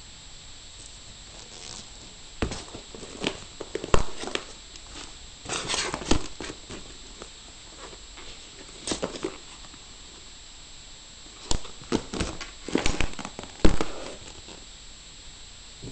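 Clear plastic bag crinkling and rustling as it is handled, in irregular bursts with sharp knocks and pauses between.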